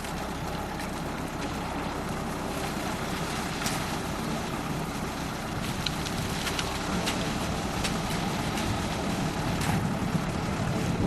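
EP3.5 self-loading concrete mixer truck's engine running steadily, with a few short sharp clicks or knocks scattered through.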